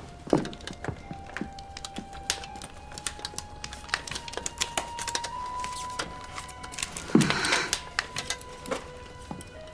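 Background music holding long steady notes, with a scatter of small clicks and knocks throughout. A louder thud with a short rush of noise comes about seven seconds in.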